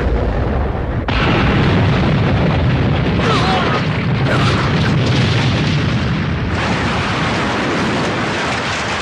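Explosion sound effect for an animated blast: a long, loud, deep noisy blast that surges again about a second in and keeps going.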